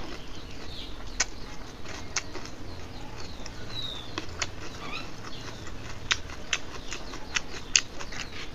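Close-miked eating sounds from a mouthful of dal and rice: wet chewing and lip-smacking with sharp, irregular mouth clicks.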